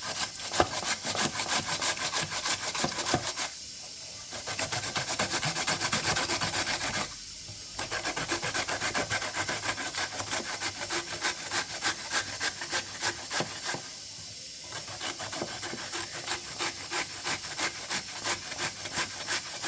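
Raw turnip being grated by hand on a grater: quick, steady rasping strokes that break off briefly three times.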